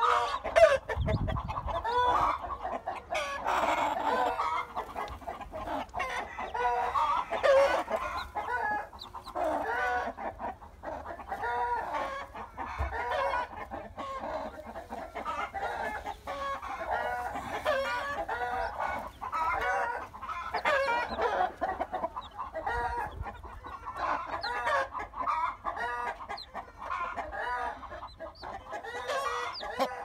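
A mother hen clucking over her downy young chicks, with the chicks peeping, in many short calls one after another.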